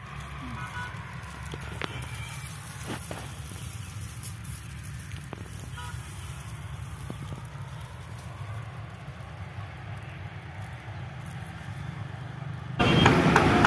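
Wind buffeting the microphone: a steady low rumble with a few faint ticks. About a second before the end it cuts abruptly to louder street noise with voices.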